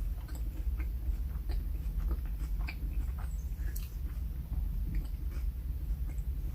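Close-miked chewing of a sandwich: soft, irregular mouth clicks and smacks over a steady low hum.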